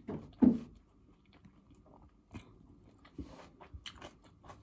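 Close-up chewing of a mouthful of fresh vegetable salad: small irregular crunches and wet mouth clicks, with a short voiced sound about half a second in.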